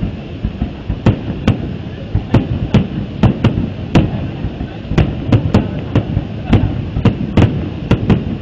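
Fireworks going off in a rapid, irregular string of sharp bangs, about two a second.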